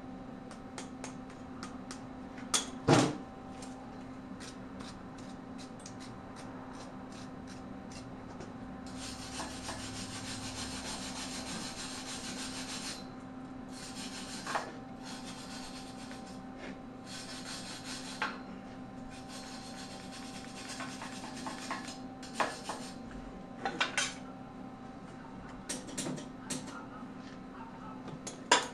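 Wire brush scrubbing a fresh weld on a steel frame tube in several rasping strokes of a few seconds each. The strokes are preceded by light, regular ticking. Sharp metal knocks come about three seconds in and again at the very end, and a steady hum runs underneath.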